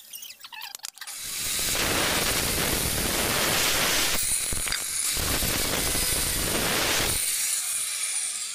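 Handheld angle grinder grinding into a teak block. It starts about a second in, runs steadily with a couple of brief dips, and stops about seven seconds in.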